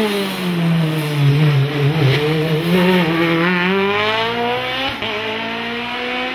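Sports prototype race car's engine at a hill climb. It drops in pitch as the car slows into a bend, then climbs as it accelerates out, with a gear change about five seconds in.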